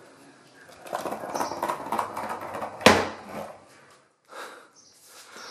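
Skateboard wheels rolling across a ceramic tile floor, a rumbling clatter over a couple of seconds, with one sharp knock about three seconds in that is the loudest sound.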